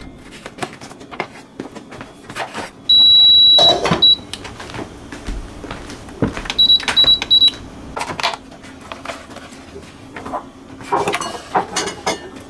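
Chef's knife chopping vegetables on a wooden cutting board, irregular knocks throughout. About three seconds in, a slow cooker's control panel gives a loud long electronic beep and then a short one. A few seconds later it gives three quick beeps as it is being set.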